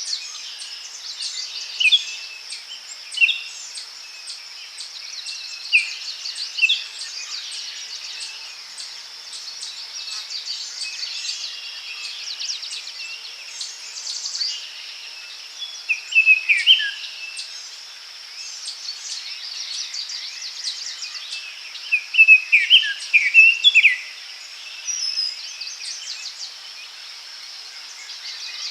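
Forest ambience: several birds call in short clusters of chirps and falling notes over a steady, high-pitched insect drone. The loudest bursts of calls come about 16 and 22–24 seconds in.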